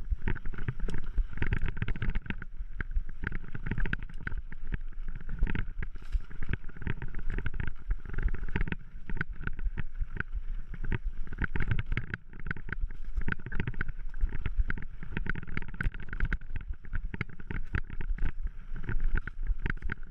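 Mountain bike descending a rough dirt singletrack, heard from a camera mounted on the rider: constant irregular rattling and knocking of the bike over bumps, with a low wind rumble on the microphone.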